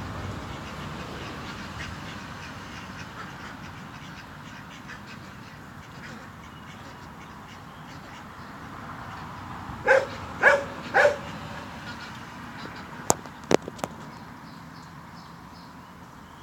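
Three short, loud calls from farmyard poultry, about half a second apart, roughly ten seconds in, followed a few seconds later by a few sharp clicks over a steady background hiss.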